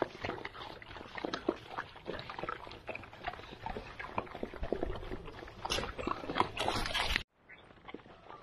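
A litter of Central Asian Shepherd puppies crunching and chomping dry kibble together from a shared tray: a dense, irregular run of crunches and clicks. The sound drops away suddenly about seven seconds in, leaving fainter crunching.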